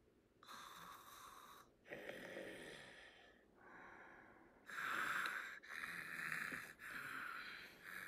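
Animated characters snoring in their sleep: a run of about six breathy snores and wheezing breaths, starting about half a second in.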